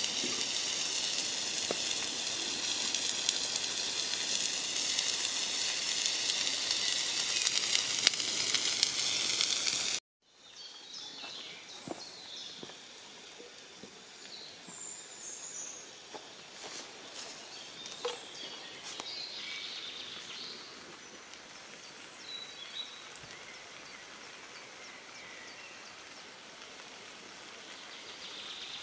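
Beef steak sizzling hard on a hot ridged grill pan, a loud steady frying hiss that cuts off abruptly about ten seconds in. After that comes a much quieter woodland background with scattered bird chirps and a few small clicks.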